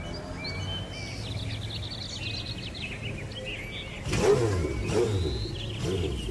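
Suzuki motorcycle engine idling with birds chirping, then revved a couple of times about four seconds in, each rev falling back.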